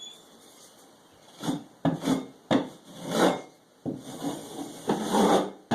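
Series of uneven scraping strokes of a hand tool across a drywall patch, about seven in all, starting about a second and a half in.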